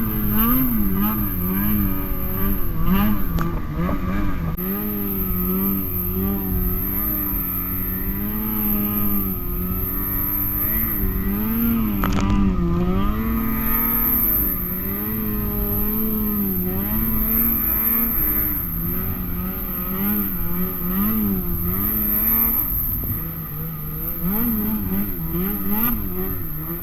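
Snowmobile engine running under load in deep powder snow, its pitch rising and falling again and again with the throttle. One sharp knock about twelve seconds in.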